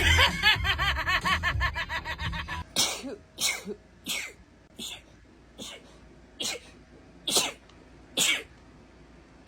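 A woman sneezing in a rapid fit: about eight short, sharp sneezes less than a second apart, starting about three seconds in, with the gaps slowly lengthening.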